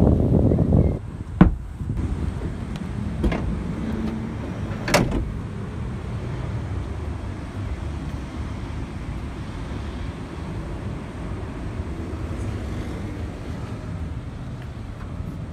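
A few sharp clicks and knocks of a Honda N-VAN's interior fittings being handled, the loudest about a second and a half in, with two fainter ones at about 3 and 5 seconds, over a steady low rumble.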